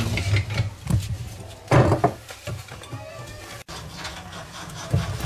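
Bamboo rats gnawing strips of split bamboo: a quick run of crunching, scraping clicks, with a louder crunch about two seconds in.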